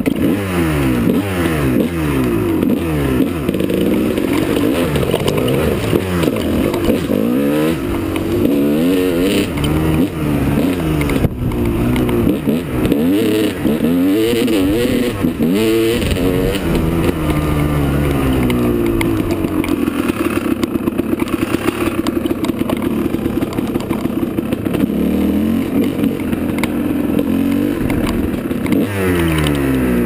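Dirt bike engine revving up and down over and over as the rider accelerates and shifts gears on a rough trail, with a steadier stretch about two-thirds of the way through.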